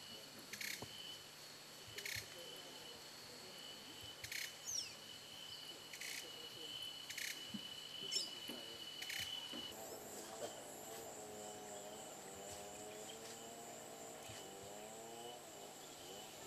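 Faint tropical forest ambience: a steady high-pitched insect drone with a sharp click every second or two, and a couple of quick bird chirps. About ten seconds in, the drone changes to a higher, thinner tone.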